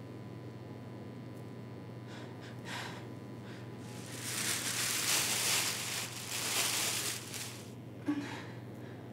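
A person's heavy breathing: two long, hissing breaths about halfway through, then a short catch of the voice near the end, over a steady low hum.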